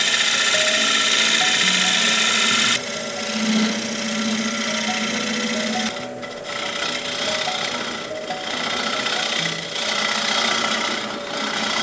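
Wood lathe spinning a wooden bowl: a gouge cutting the wood gives a dense steady hiss, which changes abruptly about three seconds in to the softer hiss of sandpaper held against the inside of the turning bowl. Soft background music plays along.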